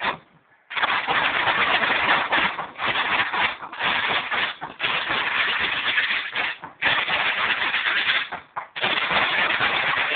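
Massed bass drums and snare drums of a bombos y tambores band playing a fast, dense rhythm, stopping briefly just after the start and then running on with short breaks between phrases.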